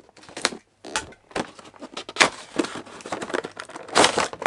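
Cardboard toy box being unpacked: a scissor blade slits the tape seal with sharp clicks and scrapes, then the clear plastic packaging crackles and crinkles as it is slid out of the box, loudest near the end.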